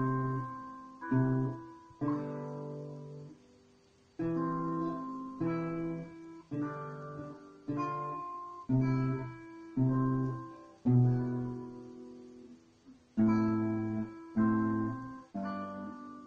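Classical guitar played solo with the fingers: slow plucked notes and chords, each struck and left to ring and die away, with a brief pause about four seconds in.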